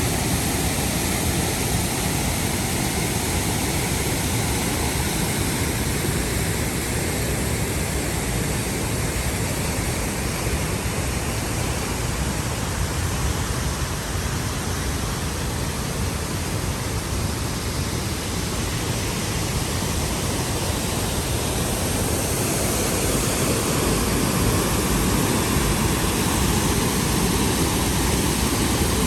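Waterfall pouring: a steady, loud rush of falling water with no breaks.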